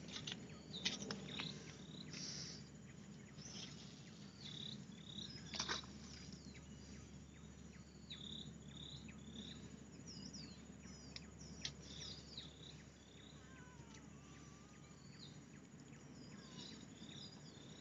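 Quiet forest ambience: many short, high chirping calls repeating throughout, with a few brief knocks, the clearest about five and a half seconds in.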